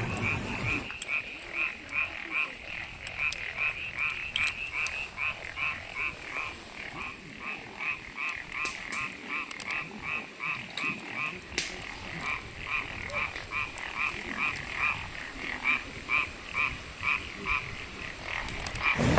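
Frogs croaking in a steady run of short, evenly spaced calls, about three a second.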